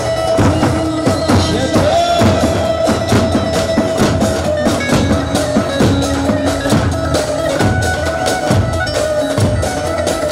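Live dance music: davul drums beating a steady rhythm under a held, wavering melody line.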